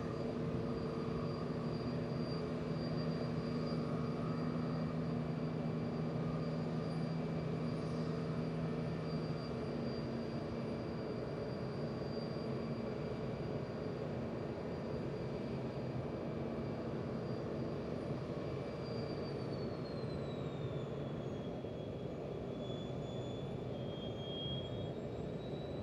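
Lockheed L-1011 TriStar's auxiliary power unit running with a steady high whine, over the lower drone of the pushback tug's engine. The low hum drops away about a third of the way in. Near the end the whine falls in pitch, then slowly climbs again.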